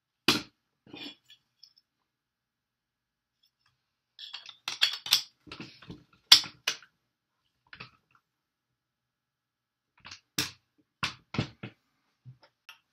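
Sharp clicks and knocks as the two pieces of a drop-in quad-rail handguard are fitted onto an AR-15 and pushed into place in the delta ring and front end cap. They come in scattered groups: one just after the start, a cluster in the middle, and a few more near the end.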